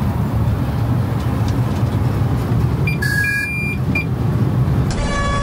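Cab noise of the ChS200 electric locomotive running along the track: a steady low rumble, with a few short electronic beeps about three seconds in.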